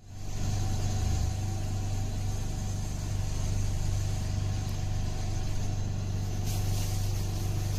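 Steady low hum with a faint high whine above it; crackling noise joins about six and a half seconds in.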